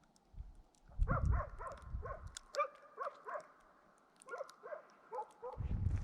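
Hunting laikas barking in quick repeated volleys of short barks, about three a second, with a brief pause midway: bay barking at a moose the dogs are holding. Low rumbling noise on the microphone comes at the start and again near the end.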